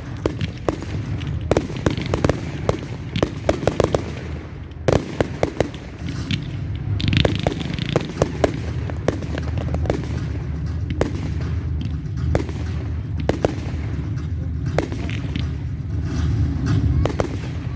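Fireworks display: many sharp cracks and bangs going off in quick clusters over a steady low rumble, with a short hissing spell about seven seconds in.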